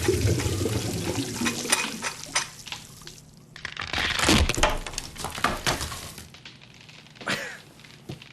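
Cartoon slapstick sound effects: a run of clattering and crashing knocks mixed with splashing water, loudest in a burst about four seconds in, with a shorter crash near the end.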